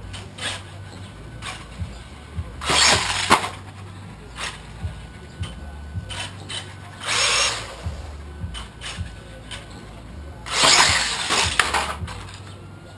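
Small electric radio-controlled monster truck, a Traxxas 1/16 Mini E-Revo, driving around on a hard floor: three bursts of motor whine and tyre scrub, about three, seven and eleven seconds in, with clicks and knocks from the truck in between.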